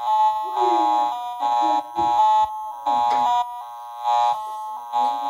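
Small toy electronic keyboard played with both hands: buzzy, beep-like chords in short rhythmic stabs, about half a second each.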